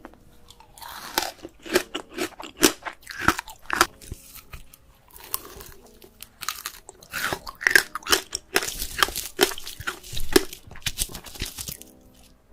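A person biting into and chewing crisp fresh fruit: clusters of sharp, wet crunching cracks, with a quieter pause around the middle.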